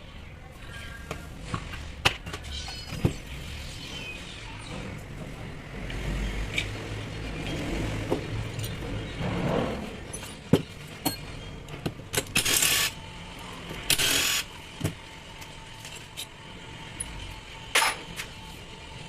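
Scattered clicks, knocks and clinks of tools and metal parts being handled while a Makita rotary hammer is taken apart, with two short hissing bursts about twelve and fourteen seconds in.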